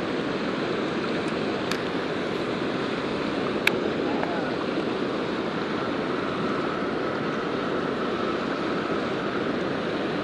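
Steady rushing of river water pouring over a low-head dam weir. A few sharp clicks sound over it, the loudest about three and a half seconds in.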